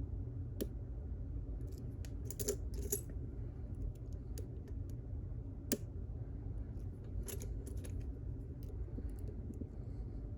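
Small metallic clicks and scrapes of a lock pick and tension wrench working in a pin-tumbler lock, coming singly and in short clusters with pauses between.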